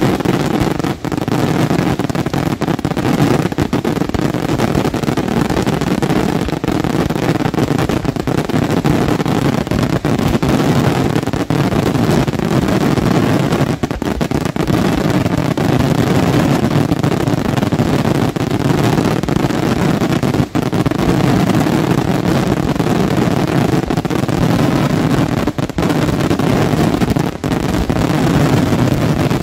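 Daytime fireworks barrage, its bangs and crackle running together into a loud, continuous rumble with no real pause.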